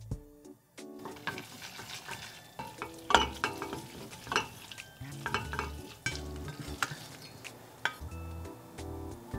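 Wooden chopsticks stirring saucy instant noodles in a stainless steel pot: wet noodle sounds with many quick clicks and taps of the chopsticks against the pot.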